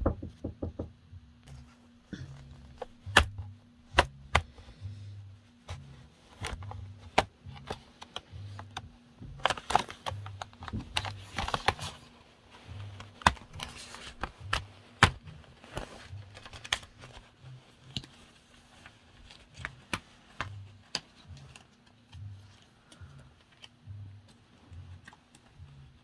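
Irregular clicks and snaps of a laptop's plastic bottom-cover clips popping loose as a plastic card is pried along the seam, coming thickest about ten seconds in.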